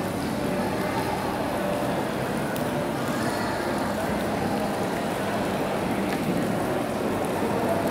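Steady, even rushing background noise of a large indoor mall concourse.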